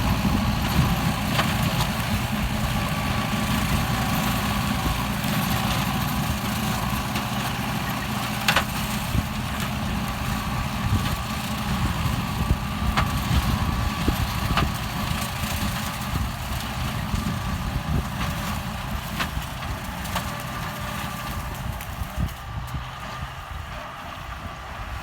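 Kubota M9540 tractor's four-cylinder diesel engine running steadily while it drives a rotary tiller through pineapple stalks, with a few sharp clicks and the sound easing off slightly near the end.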